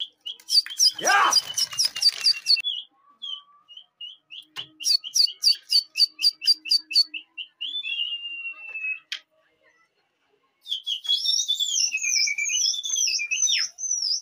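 High, bird-like whistled chirps: bursts of rapid notes, a run of short chirps about three a second that ends in a drawn-out falling whistle, then, after a short pause, a long wavering whistle.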